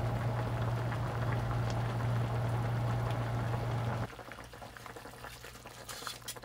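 Soy-based broth bubbling as rock bream simmers under an aluminium-foil drop lid in a cast-iron pot, over a steady low hum. Bubbling and hum cut off suddenly about four seconds in. Near the end the foil lid crinkles as it is lifted.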